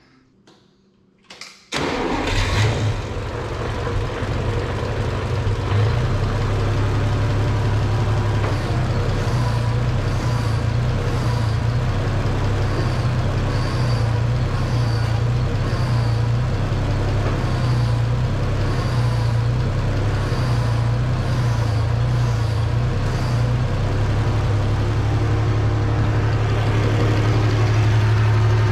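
White 2-70 tractor's gasoline engine starts up about two seconds in, on its first run after a water pump rebuild, fed only by the gas left in the carburetor, and runs at a steady idle. For a stretch in the middle the note pulses about once a second while the power steering is being turned, then it runs evenly again.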